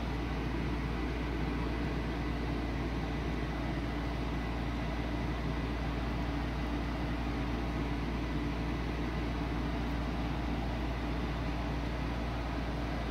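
Steady low hum with an even hiss over it, machine-like background noise with no sudden sounds.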